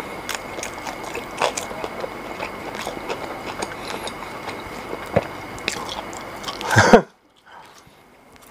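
A person chewing a mouthful of burger close to the microphone: many small irregular mouth clicks and crunches over a steady hiss with a faint high hum. About seven seconds in there is a brief loud swell, then the sound cuts off abruptly.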